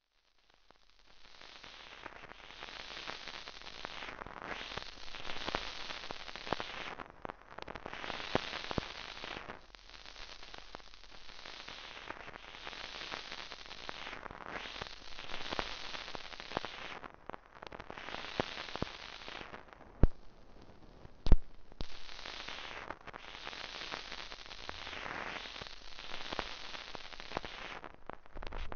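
Surface noise of an old 78 rpm record: a steady hiss and crackle that swells and fades every few seconds, with small clicks throughout and two sharp, loud pops about two-thirds of the way through.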